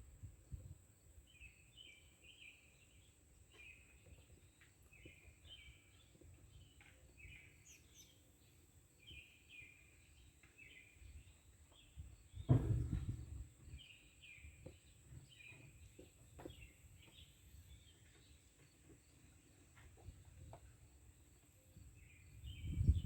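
Birds chirping in short repeated calls over a low outdoor rumble, with one dull thump about halfway through.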